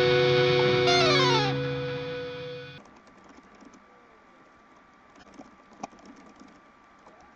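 Music with sustained, distorted tones plays, slides down in pitch about a second in and fades out by about three seconds. Faint scattered clicks follow.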